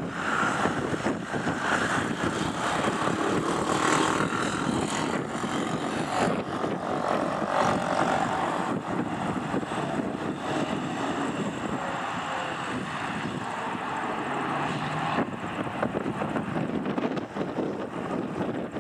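Airbus A320's twin CFM56 turbofan engines running at takeoff thrust during the takeoff roll: a steady, loud jet roar.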